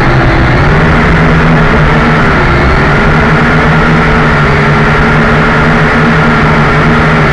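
JJRC H12C quadcopter's four motors and propellers whining steadily, picked up close by the drone's own onboard camera mic while it flies at 50% power. The pitch dips briefly about two and a half seconds in.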